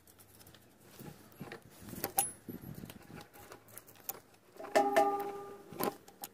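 Hand caulking gun being pumped to squeeze out a bead of sealant: several sharp clicks from the trigger and plunger rod, with a brief squeaky tone about five seconds in.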